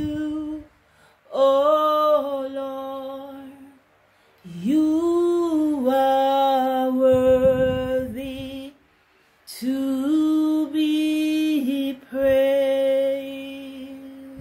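A woman singing unaccompanied, a slow worship song in three long phrases of held notes with short pauses for breath between them.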